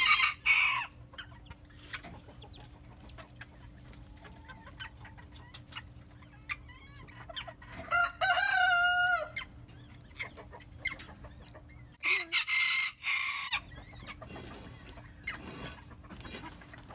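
Domestic chickens clucking and calling, with one loud, drawn-out call about eight seconds in. Loud bursts of wing flapping near the start and again about twelve seconds in, as hens fly down out of a raised coop.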